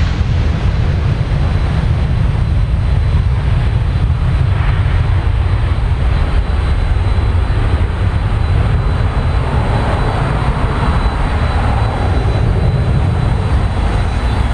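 Boeing 737-800's two CFM56 turbofan engines at takeoff thrust as the airliner lifts off and climbs out: a loud, steady, deep jet noise with no letup.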